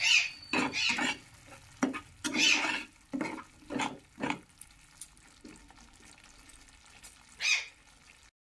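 A metal spatula stirring and scraping thick masala in a kadai, with quick repeated strokes for about the first four and a half seconds and one more stroke near the end. Between the strokes the masala sizzles faintly as it fries on medium flame.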